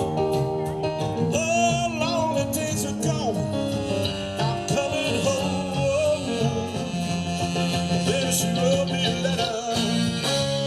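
Live band playing a song, with a singer's wavering vocal line and guitar over a steady drum beat.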